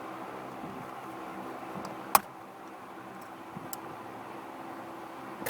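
Steady hum of the truck's air conditioning running, with one sharp click about two seconds in and a few fainter ticks as small horn-button parts are worked loose on the steering wheel.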